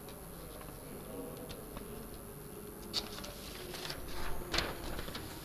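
Sheets of paper rustling and crackling close to a lectern microphone as pages are handled: a few sharp crackles, then a longer rustle in the second half. Underneath is a faint steady hum from the sound system.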